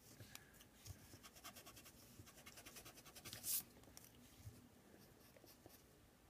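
Faint pencil scratching on paper in quick, short strokes, the pencil pressed hard, with one longer, louder stroke about three and a half seconds in and sparser strokes after it.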